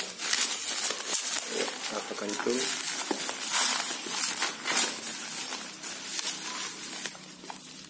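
Plastic wrapping and bubble wrap being pulled apart and crumpled by hand, a continuous crinkling rustle with sharper crackles now and then.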